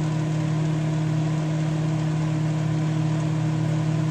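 Microwave oven running: a steady low hum with fan noise over it.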